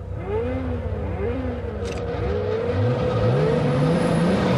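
Sports car engines, a Toyota Supra and a Ferrari side by side, revving in short throttle blips. Then one accelerates hard, its pitch climbing in repeated steps as it shifts up through the gears.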